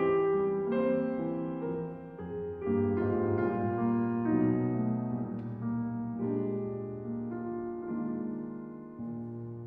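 Background piano music: slow chords, each struck and left to ring out and fade before the next.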